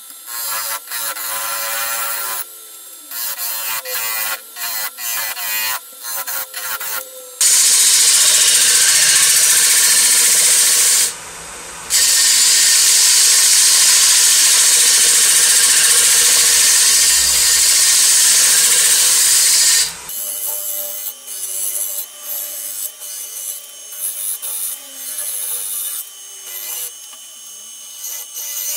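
A turning tool cutting a large plane-wood bowl blank spinning on a wood lathe. The first few seconds are short scraping cuts with pauses between them. From about 7 seconds in comes a long, loud continuous cut as shavings spray off, broken once briefly, and then short intermittent cuts return around 20 seconds.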